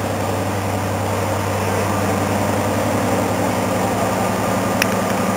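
Class 55 Deltic diesel locomotive's twin Napier Deltic two-stroke engines running with a steady low hum as it creeps slowly into the platform. A brief click near the end.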